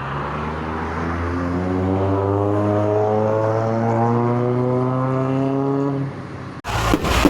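An engine's steady, droning hum slowly grows louder. Near the end it breaks off abruptly into a burst of rough crackling noise.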